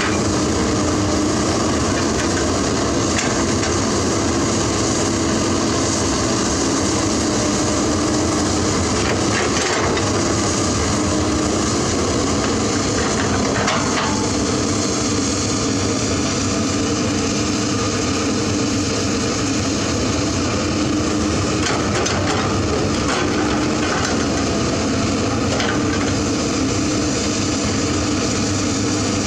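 Komatsu PC200 hydraulic excavator running steadily as it digs, its engine hum constant, with a few scattered knocks and clanks from the bucket working in dirt and stones.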